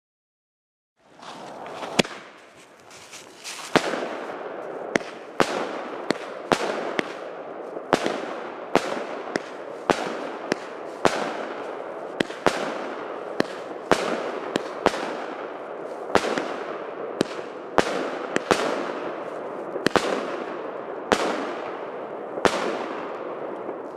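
Mumie 16-shot, 25 mm firework cake firing, starting about a second in: sharp reports roughly once a second over a continuous dense crackling from the bursting stars.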